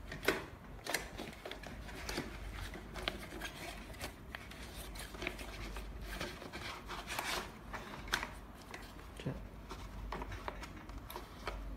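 Fabric cuff of an RBP-9000 blood pressure monitor being rolled up and pushed into the monitor's ring by hand: irregular rustling of cloth with scattered soft clicks and knocks against the plastic housing, over a low steady hum.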